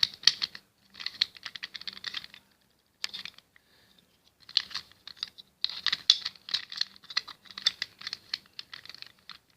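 Plastic pieces of a disassembled Rubik's cube being handled and fitted together, giving quick runs of small clicks and rattles, with a short pause partway through.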